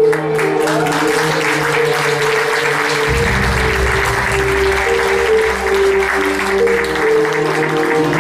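Audience applause over backing music with held notes; a deep bass part comes in about three seconds in.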